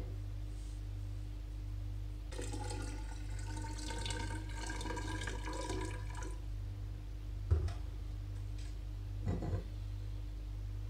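Tap water poured from a glass measuring cylinder into a glass beaker for about four seconds, starting about two seconds in. Then a sharp knock, and a softer clatter near the end, over a steady low hum.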